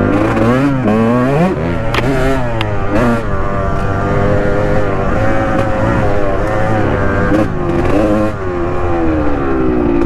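Honda dirt bike engine revving up and down as the throttle is worked over a rough trail, with a few sharp knocks about two to three seconds in. Near the end the revs fall away steadily as the bike slows.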